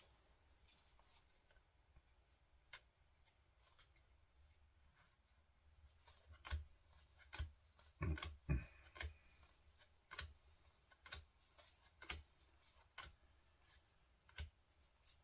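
Faint, scattered clicks and taps of Pokémon trading cards being handled and set down, a few close together about eight seconds in.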